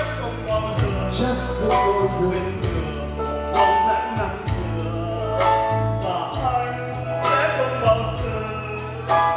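A man singing through a microphone and PA over a live electronic keyboard accompaniment with a steady drum beat.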